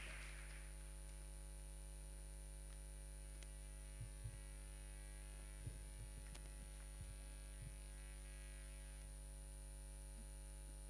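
Quiet, steady electrical mains hum, with a few faint low thumps about four to eight seconds in.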